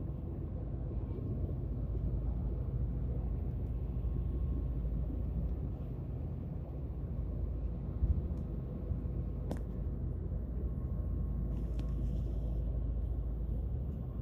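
Steady low rumble on the open deck of a moving passenger boat: the vessel's engine drone mixed with wind on the microphone, with a faint steady hum. A brief thump comes about eight seconds in.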